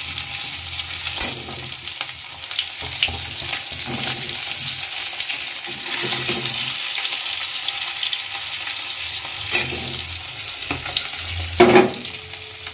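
Fish pieces sizzling as they shallow-fry in hot oil in a kadai, with a metal spatula scraping against the pan as the pieces are turned and lifted out; a louder scrape near the end.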